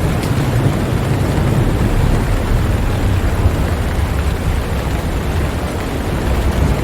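Steady rain hiss over a deep, continuous low rumble of thunder.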